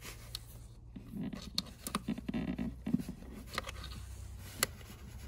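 Wiring with an RCA connector being forced by hand through a rubber firewall grommet: scattered rubbing, scraping and short clicks, with one sharp click about four and a half seconds in.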